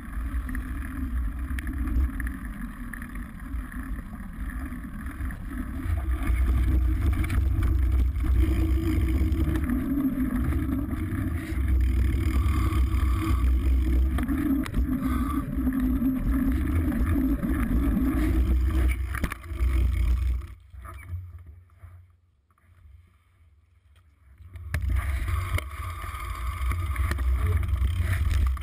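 Riding noise from a mountain bike in motion: wind rushing over the camera's microphone and the rumble of tyres on the trail, loud and steady. It drops away about twenty seconds in and picks up again about four seconds later.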